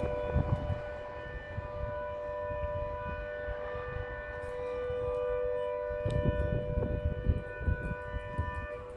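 A sustained steady two-note warning tone, held at a constant pitch without rising or falling, with wind buffeting the microphone at the start and again about six seconds in.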